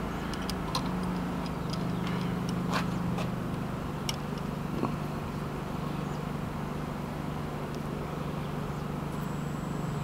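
Brass fitting being handled and threaded onto a vacuum pump's inlet port, giving a few light metal clicks, over a steady low hum.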